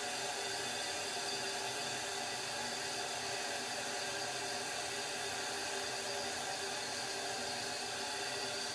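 Toilet tank refilling after a flush: a steady hiss of water running through the fill valve.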